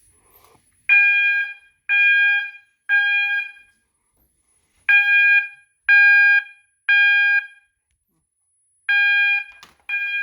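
Fire alarm horn sounding the temporal-3 (code 3) evacuation pattern: three loud, steady, pitched tones, a pause, and the same again, three rounds in all. The panel has gone into alarm after a 2151 smoke detector was tested.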